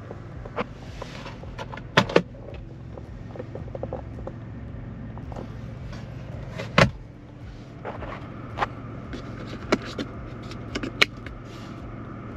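Jeep Avenger's 1.2-litre turbocharged three-cylinder petrol engine running with a steady low hum, broken by irregular sharp clicks and knocks: a pair about two seconds in, the loudest near seven seconds, and several smaller ones after.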